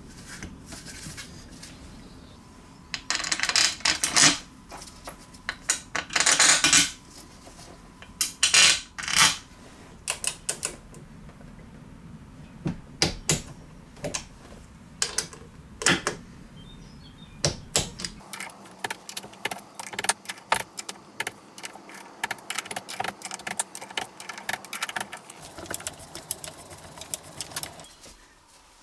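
Ratchet wrench clicking as the crankcase cover bolts of a Briggs & Stratton horizontal-shaft engine are run in and torqued to 10 Nm, with small clinks of metal tools. Short runs of loud clicking come in the first ten seconds, and a long stretch of fast, even clicking follows in the second half.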